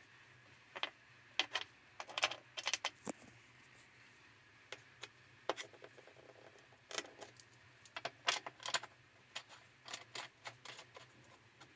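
Light metallic clicks and clinks of bolts and washers being handled and set by hand into the bolt holes of a hydro-extractor spin dryer's drum, loose and not yet tightened. The clicks come irregularly throughout, thickest from about seven to nine seconds in.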